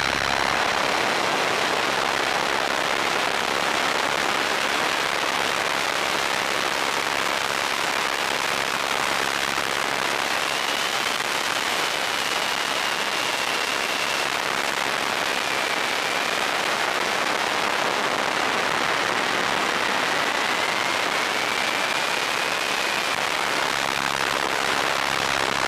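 Steady loud rushing hiss on the T-Rex 500 electric helicopter's onboard FPV audio during a fast descent, most likely air rushing over the microphone. A faint whine of the motor and rotors wavers in pitch behind it.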